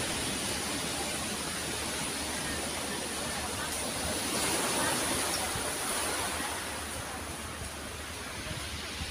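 Steady rush of sea surf on a pebble beach, swelling a little about halfway through.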